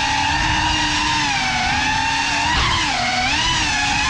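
Cinelog 35 cinewhoop FPV drone's motors and propellers whining, the pitch wavering with the throttle, with a quick surge up and a dip a little past halfway.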